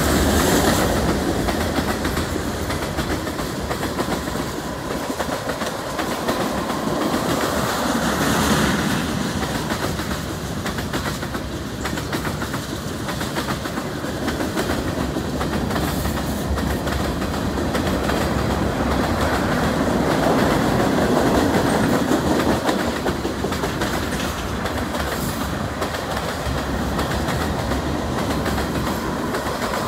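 A CN freight train's tank cars and gondolas rolling past: steel wheels rumbling steadily on the rails, with clacking from the wheels, swelling and easing slightly as the cars go by.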